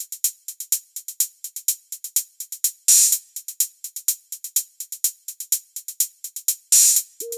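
Electronic intro music: a drum-machine beat of fast, sharp high ticks, with a louder crash-like hit about three seconds in and again near the end, where a stepping synth melody comes in.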